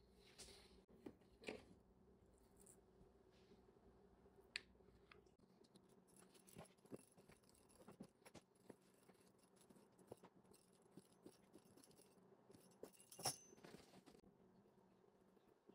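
Near silence with faint taps and clicks of hands and a pastry wheel working dough on a silicone baking mat, and one sharper click near the end.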